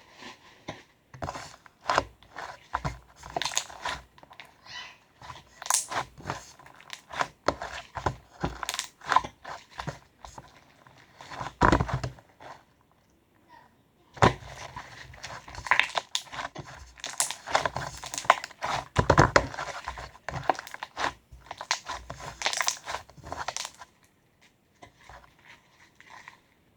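Irregular crinkling and rustling with scattered clicks and knocks, as of something being handled up close. It pauses briefly about twelve seconds in and grows faint near the end.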